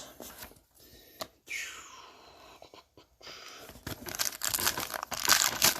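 Crinkling and rustling of plastic as trading cards are handled, sparse at first and busier and louder over the last couple of seconds.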